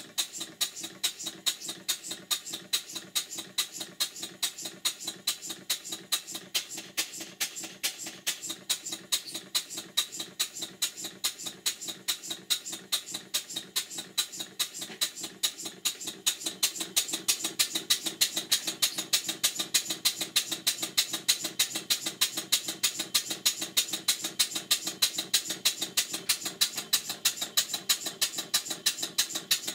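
Stuart 5A model steam engine running on compressed air, with a fast, even beat of exhaust puffs that grows louder from about halfway through. The owner says the piston gland is blowing and the flywheel knocks a bit because its key is too small.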